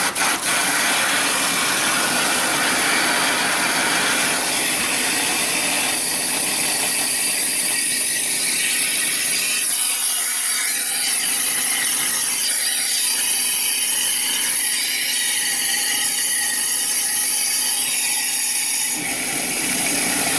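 Compressed air hissing steadily from a shop air blow gun forced into the engine's coolant hoses, blasting the old coolant out of the cooling system. The hiss changes tone about four seconds in and again about a second before the end.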